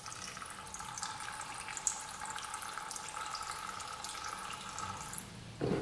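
Old gasoline pouring in a steady stream from a tipped-up plastic ATV fuel tank into a plastic drain pan, stopping near the end. The fuel is contaminated with water.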